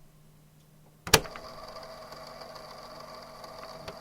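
Cassette tape player rewinding: a sharp clunk of the deck's button about a second in, then the tape spooling at speed with a steady motor whirr and whine.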